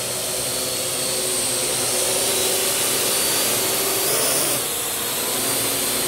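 Parrot AR Drone 2.0 quadcopter's four electric rotors whirring steadily in flight while it carries a 100-gram payload and is steered around. The whir grows louder as the drone comes closer, then shifts in pitch and dips briefly about four seconds in as it maneuvers.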